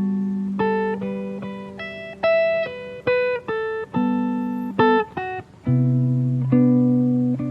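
Acoustic guitar played slowly, with single plucked notes and chords, each left to ring and fade. Deeper notes sound about two-thirds of the way through.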